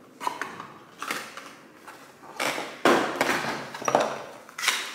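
Cosmetic packaging being handled and opened: a few short scraping, rustling bursts with clicks, the longest about halfway through.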